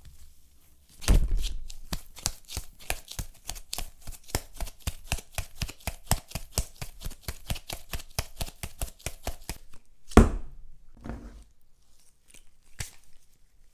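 Wet blue slime squeezed and worked between rubber-gloved hands: a fast, even run of sticky squelches, about five a second, then one louder squelch about ten seconds in and a few scattered ones after.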